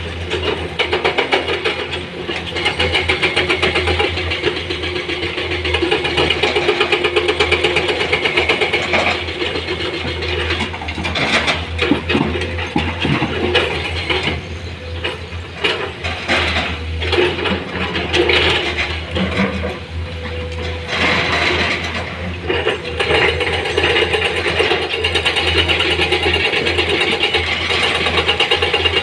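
Heavy diesel engine of earthmoving equipment running with a rapid mechanical rattle, with irregular knocks and clattering through the middle stretch.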